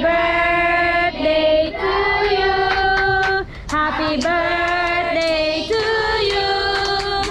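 Children and women singing a birthday song together in held, drawn-out notes.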